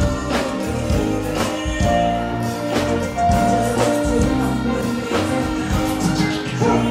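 Live band music on a concert stage, with sustained keyboard notes over a steady drum beat.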